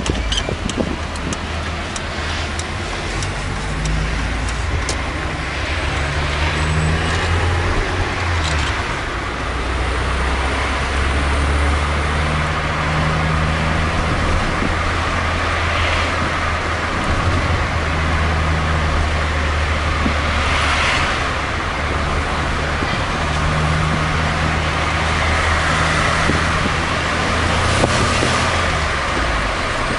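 Inside a moving Volkswagen taxi: the car's engine hums low under the road and tyre noise, swelling and easing several times as the car speeds up and slows in traffic.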